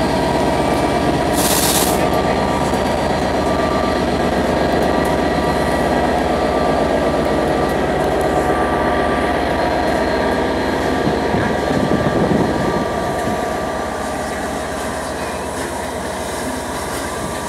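A Class 67 diesel locomotive and the Bulleid Pacific steam locomotive 34052 moving slowly along a platform: the diesel's engine gives a loud, steady deep rumble, mixed with steam from the steam locomotive. The sound eases a little in the last few seconds as the steam locomotive draws level.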